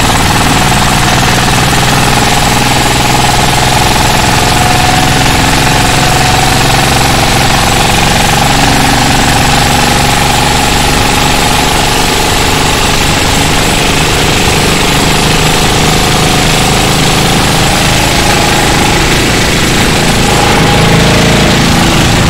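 Chinese-made 'dompeng' diesel engine of a racing boat running flat out under way, loud and steady, with a steady high whine over the engine noise.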